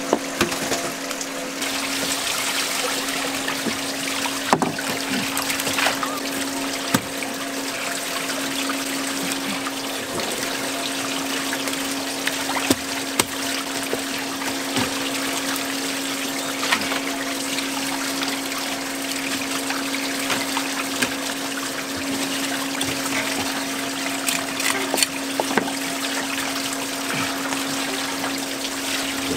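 Water running and trickling steadily over a constant mechanical hum, with scattered short knocks of a knife on a wooden cutting board.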